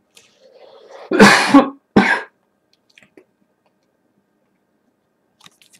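A man coughing twice in quick succession about a second in, after a brief low throat rumble.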